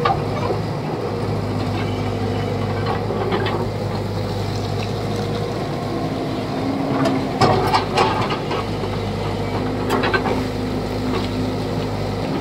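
Excavator's diesel engine running steadily, with sharp clanks and scrapes about seven to eight seconds in and again near ten seconds, as the machine works.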